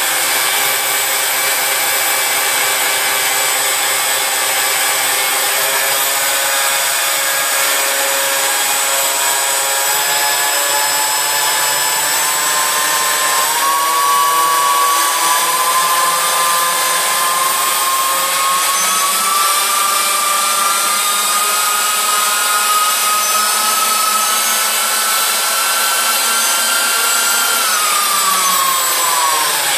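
Electric ducted fans of a radio-controlled Airbus A380 model running with a loud, steady whining hiss, several whines at slightly different pitches. About halfway through the main whine climbs slowly, then falls away sharply near the end.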